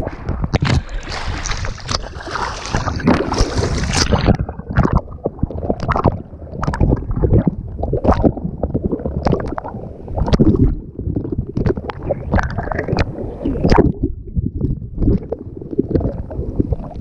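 Water splashing and sloshing close to the microphone in a long run of irregular splashes, as someone wades through shallow seawater working a fishing net; the splashing is busiest in the first few seconds.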